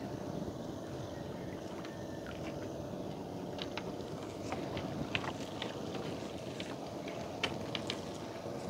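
A boat engine running with a steady hum, with scattered light clicks and taps from about three and a half seconds in.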